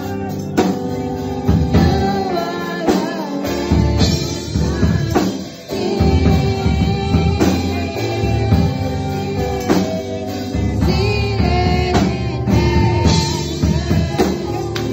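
Live gospel praise-and-worship music: a vocal group singing into microphones over a band with a drum kit keeping a steady beat.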